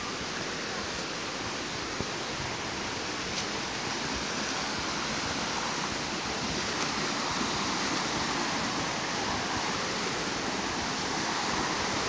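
Stream water rushing steadily over rocks, an even hiss that grows a little louder over the first several seconds.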